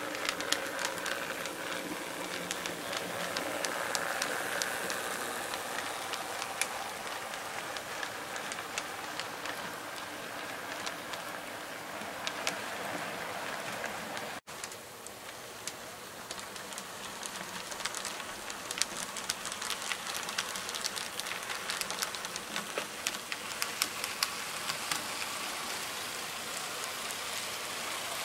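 Rivarossi HO scale 0-4-0 model steam locomotive running on the track: its stock motor and gears hum, with a steady crackle of many small clicks from the wheels on the rails. The sound cuts out for an instant about halfway through.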